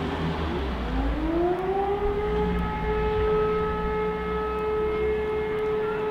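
Civil-defence siren sounding the alarm that calls out the volunteer fire brigade. About a second in it winds up, rising in pitch, then holds a steady tone.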